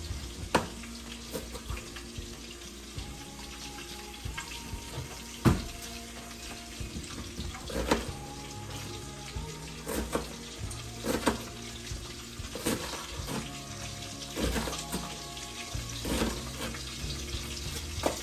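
Food sizzling as it fries in a pan, a steady hiss with sharp clinks and knocks of a utensil against the pan every second or two. Faint background music plays underneath.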